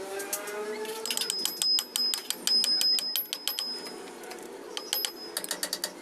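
Ratchet wrench being worked in quick runs of sharp metallic clicks, about eight a second, with a high metallic ring under some clicks; a second run comes near the end.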